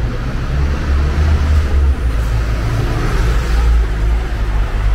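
Diesel coach driving past close by: a steady low engine rumble, with engine and tyre noise swelling about three seconds in as it passes.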